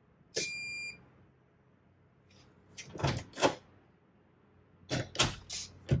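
Thorbolt MK1 smart latch lock gives one short electronic beep as it unlocks, then two clusters of sharp mechanical clicks and knocks from the lock's knob and latch, about a second and a half apart.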